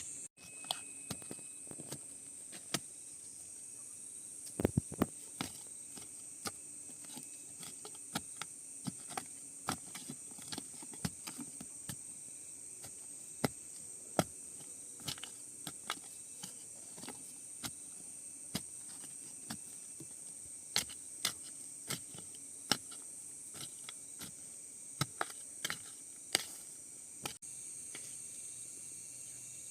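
A steady high-pitched insect chorus of crickets or cicadas, with irregular sharp clicks and snaps, a few a second, from handwork nearby.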